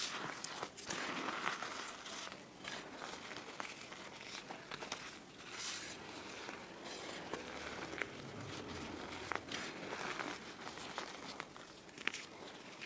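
Hands scooping, squeezing and sifting a pile of crushed green gym chalk powder: a soft, continuous rustle of fine powder with scattered small crunches and clicks as leftover lumps break.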